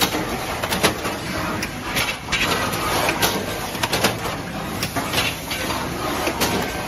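Automatic fruit cling-film wrapping machine running, a steady mechanical noise with many irregular sharp clicks and clatters from its mechanism.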